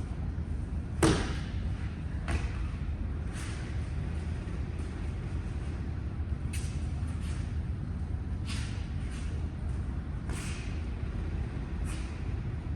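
Thuds and slaps of bodies landing in breakfalls on the mat as aikido throws are performed, one every second or two, the loudest about a second in, over a steady low hum.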